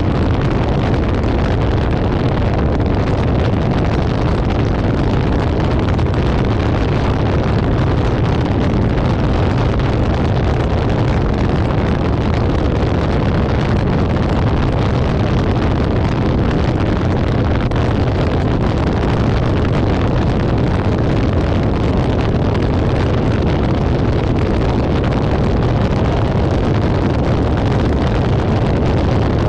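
Steady wind rush and road noise picked up by a camera mounted on the hood of a moving car, loudest in the low rumble.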